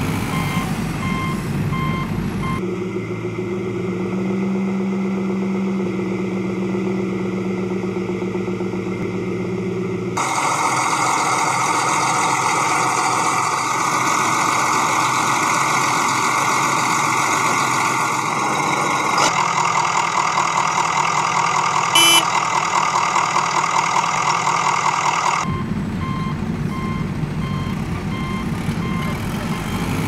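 Vehicle engine sounds in several separate stretches that switch abruptly, with repeating reversing beeps at the start and again near the end.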